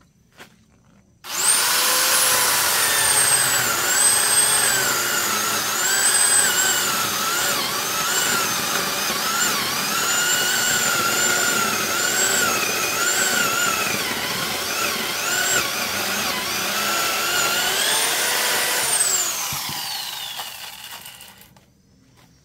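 Small corded electric chainsaw switched on about a second in and cutting through a log, its motor whine dipping and wavering in pitch as the chain bites into the wood. Near the end it is released and winds down with a falling whine.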